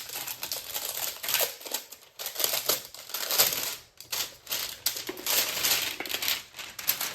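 Album packaging being unwrapped by hand: a dense, uneven run of crinkling and rustling that stops abruptly near the end.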